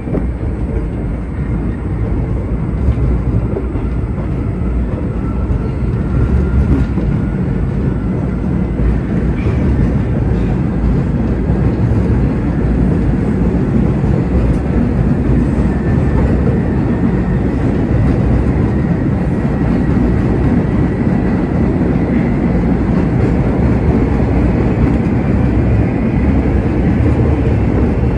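MBTA Red Line subway car running through a tunnel after pulling out of a station, heard from inside the car: a loud, steady rumble of wheels on rail, with a faint high whine above it.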